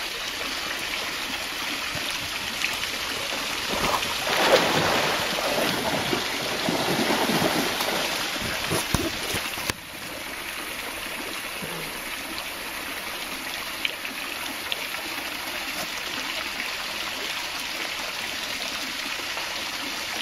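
Steady splash of a small waterfall pouring from a rock feature into a pool. From about four seconds in, several seconds of louder splashing as a tiger wades out of the water.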